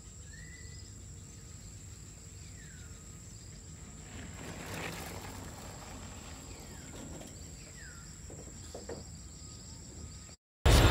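Outdoor ambience of a steady high insect drone with a few short bird whistles sliding down in pitch. About four and a half seconds in, a brief soft rush of noise as a mountain bike rolls past on the dirt trail.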